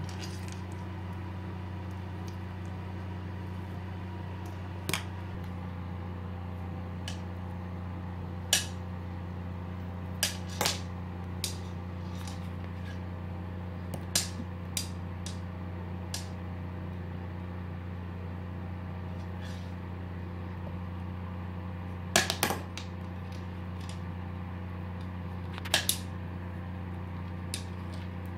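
Makeup brush knocking and clattering against a ceramic bathroom sink as a cat bats it around: a dozen or so sharp clicks at irregular intervals, some in quick pairs. A steady low hum runs underneath.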